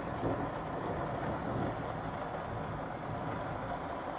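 Steady, even hiss of a light rain just beginning to fall at the start of a thunderstorm.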